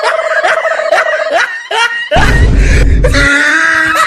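Dubbed-in comic sound effects: squeaky, cartoon-like voices, screams and snickers, with a deep low rumble lasting about a second from about two seconds in.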